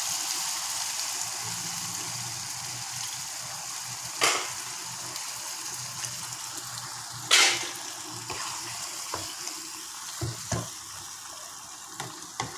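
Chicken in masala sizzling in a pan as water is added, the hiss slowly dying down. A spoon knocks or scrapes the pan twice, about four and seven seconds in, with lighter clicks near the end.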